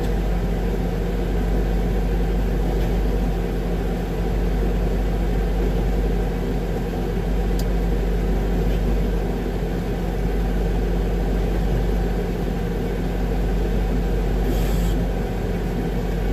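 Concrete mixer truck's diesel engine running steadily, with the drum turned down to its slowest speed to trickle concrete out into a line pump hopper. A steady low rumble and hum throughout, with a single click about halfway.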